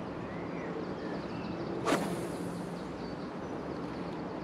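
A steady low hum with wind and water noise around a small boat, broken by one short swish about two seconds in.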